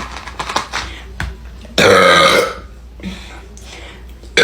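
A woman's loud belch about two seconds in, lasting under a second, with a rough, pitched tone. A few faint clicks come before it, and another belch starts right at the end.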